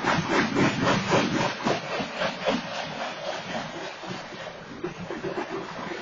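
Freight train's covered hopper cars rolling past, their steel wheels clattering in quick, rapid clicks on the rails. The clatter is loud at first and eases after about three seconds into a quieter steady rumble and hiss.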